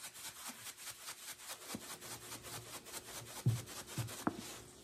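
Dry ground seasoning being shaken from a plastic spice shaker bottle into a mixing bowl: a fast, even rattling shake that stops shortly before the end, with a couple of soft low knocks near the end.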